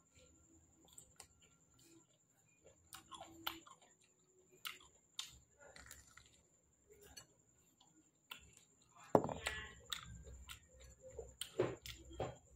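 Close-up chewing and lip-smacking of soft fruit, with scattered wet mouth clicks. The loudest bites and chews come about nine seconds in and again near the end.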